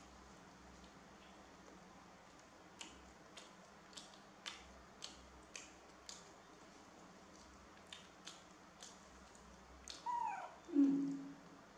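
Soft clicks and smacks of chewing, about two a second, as a baby macaque and a person eat soft white buns. Near the end a short call sweeps down in pitch and ends in a brief low hum; it is the loudest sound.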